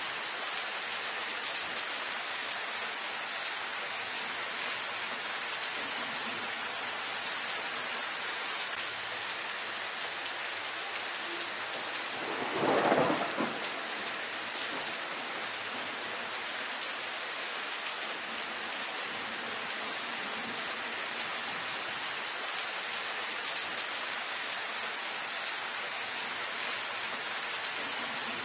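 Steady rain falling on dense foliage, an even hiss. About halfway through, a single louder burst lasting about a second stands out over the rain.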